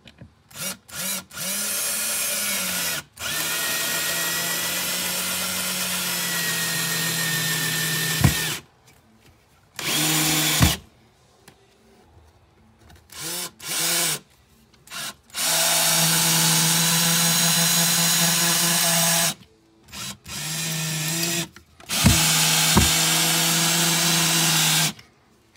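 Ryobi cordless drill/driver running in repeated bursts of one to five seconds, driving screws through a plywood panel into a wall stud. A sharp click ends a few of the runs.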